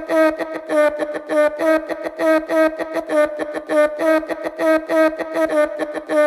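Background music: the intro of a hip hop track, a short pitched melody looping over a steady beat.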